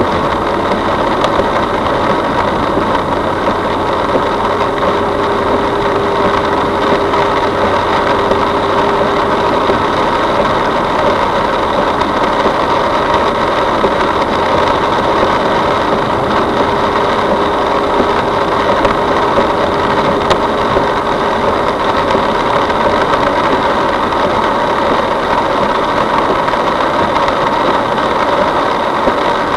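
Steady engine and road noise heard inside a moving car, loud and unchanging throughout, with a few constant hums over a dense wash of noise.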